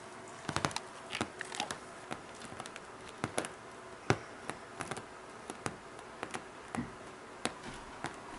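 Scattered sharp taps and knocks at irregular intervals over a faint steady hum, the loudest about four seconds in.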